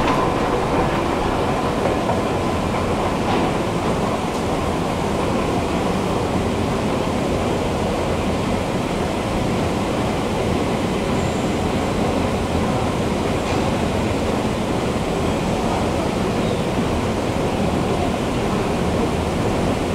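Subway station escalator running, its steps and drive machinery giving a continuous, steady rumble.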